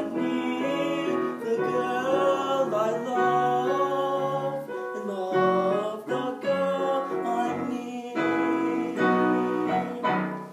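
A young man's solo voice singing the closing phrases of a Broadway show tune, with piano accompaniment and long held notes; the music stops right at the end.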